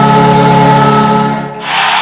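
A hockey arena goal horn holds a steady multi-tone chord, then cuts off about one and a half seconds in. Crowd noise rises in its place, with music under it.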